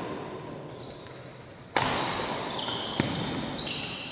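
Badminton rackets striking the shuttlecock in a rally: three sharp hits, the loudest a little under two seconds in, each ringing on in the hall. Short high squeaks from players' shoes on the court come between the later hits.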